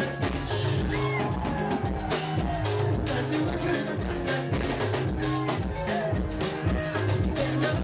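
Band music played loud over a PA, with a steady drum beat and a repeating bass line, and a man's voice on a microphone over it.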